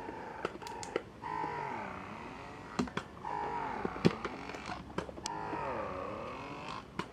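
Phanpy wearable breast pump, fully assembled with its flange covered, running in expression mode: the motor's pitch dips and rises again in a repeating suction cycle about every two seconds, with scattered sharp clicks.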